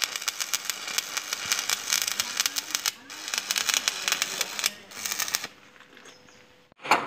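Shielded metal arc (stick) welding with a 6013 electrode running a vertical-up bead on a steel post: the arc crackles steadily, breaks briefly about three seconds in, and stops about a second and a half before the end.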